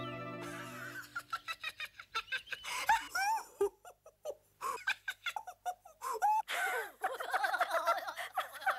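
A held musical chord fades out in the first second, then cartoon characters chatter and laugh in quick, high, squeaky gibberish voices.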